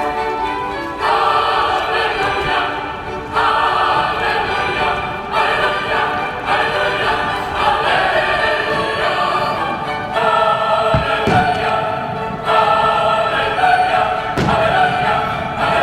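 Choral music: a choir singing held chords that change every second or two, with a low thump about eleven seconds in and another near the end.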